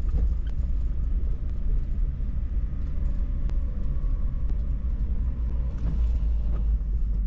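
Car driving slowly, heard from inside the cabin: a steady low rumble of road and engine noise, with a few faint ticks.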